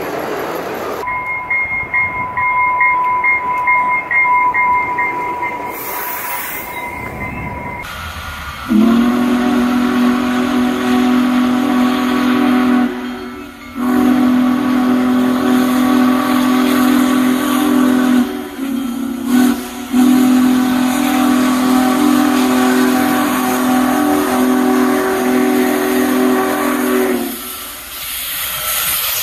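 Union Pacific Big Boy No. 4014 steam locomotive's chime whistle blowing a deep chord of several notes in long blasts, with two short breaks, over hissing steam. Before it, a single high whistle tone is held steady for several seconds.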